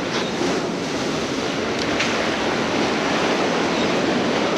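Ocean surf washing under a fishing pier, a steady rushing noise, with wind on the microphone.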